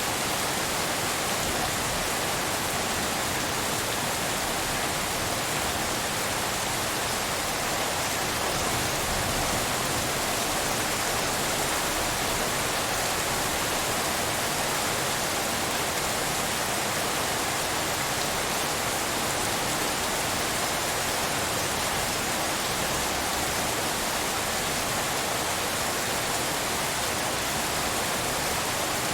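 Steady rainfall as a dense, even hiss, without distinct separate drops or changes.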